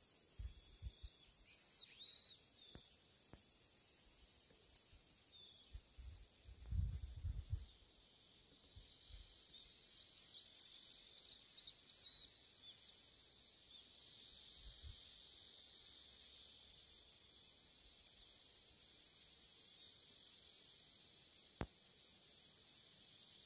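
Steady, faint, high-pitched insect chorus that grows a little louder after the first several seconds. A few short chirps sound over it, along with some low thumps in the first eight seconds.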